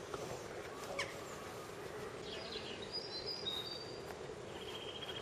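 Faint outdoor ambience with a steady low background noise and scattered short, high chirps of small songbirds. A rapid high trill begins near the end. The displaying peacock itself does not call.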